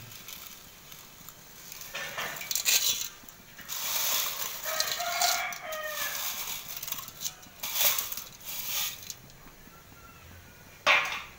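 A rooster crowing, one long call starting about four seconds in, among several shorter sharp sounds, the loudest near the end.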